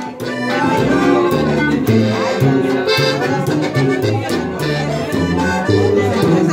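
Live accordion-led band playing the instrumental break between sung verses of a corrido, the accordion carrying the melody over a rhythmic bass line and percussion.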